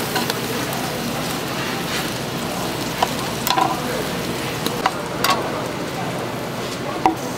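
Kitchen knife chopping steamed sundae on a wooden cutting board: a handful of sharp, irregular knocks of the blade striking the board, over a steady background hiss.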